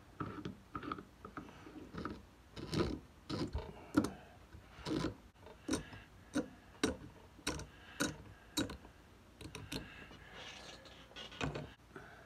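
Metal clicks and light knocks from screwing the pressure relief valve into a Caterpillar Sixty oil pump, with a steady run of sharp clicks about every half second through the middle.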